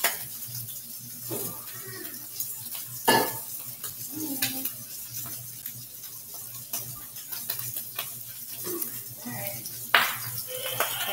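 Sausage frying in a cast iron skillet, sizzling with scattered sharp pops, a few of them loud.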